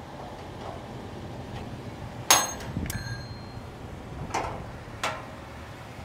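Sharp metal-on-metal clanks: one loud ringing clank about two seconds in, then a few lighter ones, over the steady low rumble of an idling truck engine.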